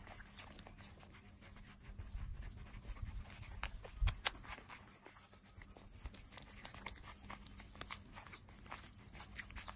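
A litter of puppies suckling at their mother dog: many small, quick wet smacking and sucking clicks. A low rumble builds and ends in a dull thump about four seconds in.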